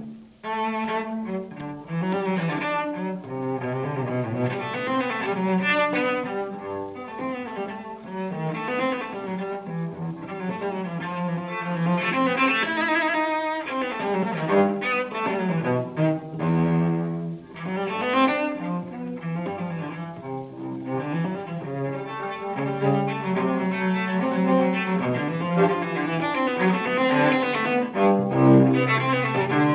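Cello music: bowed cello notes moving continuously through a melody.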